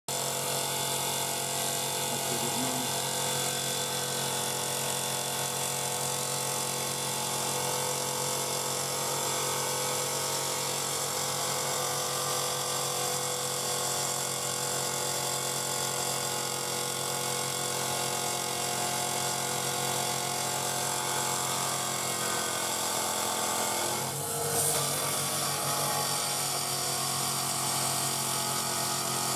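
Electric stone-cutting saw running steadily, its water-cooled cutting disc grinding through a hand-fed stone, with a steady motor hum under the cutting noise. The sound shifts briefly near the end.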